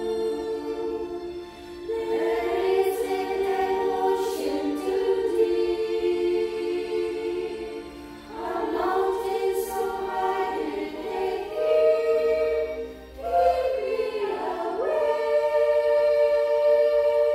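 Choral singing of a slow song in long held chords, with short breaks between phrases.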